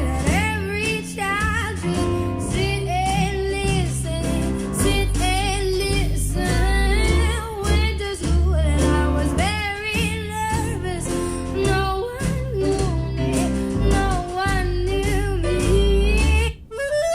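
A song with a singing voice, guitar and a deep bass line, played back through Fluance Ai60 powered speakers. Near the end it cuts off, and a different piece with woodwind and strings starts.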